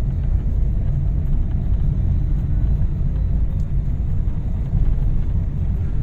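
Steady low rumble of a car's engine and tyres on asphalt, heard from inside the cabin while driving.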